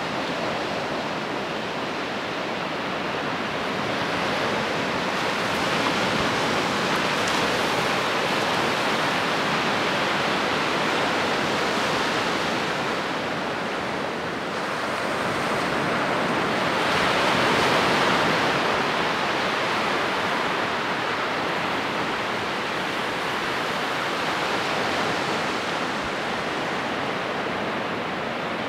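Ocean surf washing steadily on a shallow beach, a continuous hiss that slowly swells and eases, loudest about six and eighteen seconds in.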